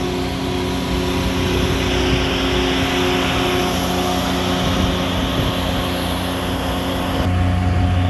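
Engine of a Vermeer VacTron LP573XDT vacuum excavator running steadily: a constant hum under a broad hiss. Near the end the hiss fades and a deeper hum grows stronger.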